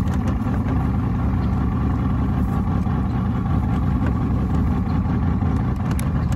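Mercury outboard motor idling steadily just after being cranked up, a constant low running sound; the owner says she doesn't sound real good.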